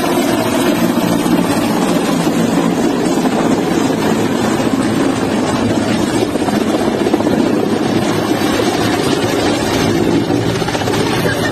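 Low-flying Mi-17-type military transport helicopter: steady, loud rotor and turbine noise as it banks overhead.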